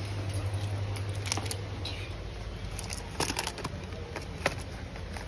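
Light clicks and rattles of a hand-held car keyring and of stock-cube boxes being handled, mostly about three seconds in, with one more click a little later, over a steady low hum in the shop.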